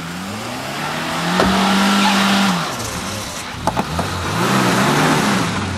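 Suzuki Samurai's four-cylinder engine revving hard off-road. It climbs to a held high pitch about a second in and drops away, there are a couple of sharp knocks just past the middle, then it revs up again.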